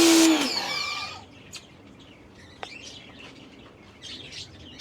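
Electric pressure washer's motor whining and its spray hissing as the gun trigger is squeezed, the pitch falling away as the trigger is released about a second in. Birds then chirp faintly.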